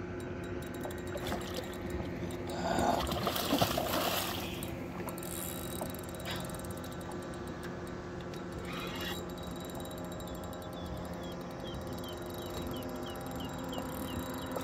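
Shimano spinning reel's drag buzzing steadily as a hooked catfish pulls line off against it, with a brief splash of water about three seconds in.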